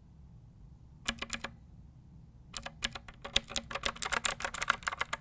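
Clicky blue switches of a 61-key mechanical keyboard being pressed: three quick clicks about a second in, then from about halfway a fast, continuous run of key clicks, as in typing.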